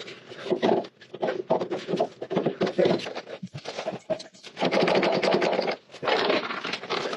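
Irregular scraping and rubbing in uneven bursts with short pauses, like hand work on a part.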